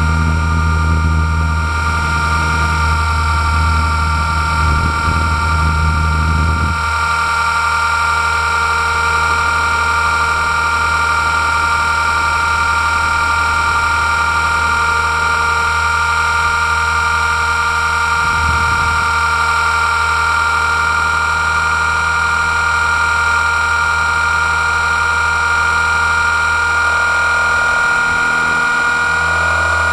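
Blade 230S V2 electric RC helicopter running, heard from its onboard camera: a steady high whine from the brushless motor and gears over the buzz of the rotors. A deep low drone underneath drops away about seven seconds in.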